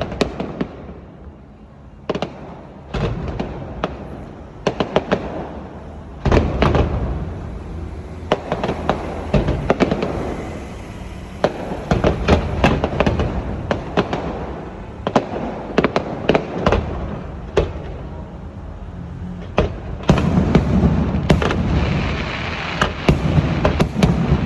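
Fireworks display: a rapid, irregular series of sharp bangs from bursting shells over a continuous low rumble. The barrage grows denser and louder about six seconds in and again near the end.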